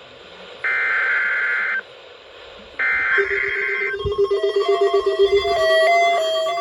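Emergency Alert System SAME header: harsh, warbling digital data bursts, each about a second long, repeated with about a second of gap, twice here. This is the coded header that carries the alert's event, area and time and triggers receivers. About three seconds in, a steady low tone starts with a stepping, melody-like higher tone over it.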